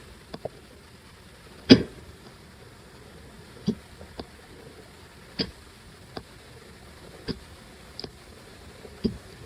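A person hiccuping: five short, sharp hiccups at an even pace about two seconds apart, the second the loudest, with fainter little clicks in between.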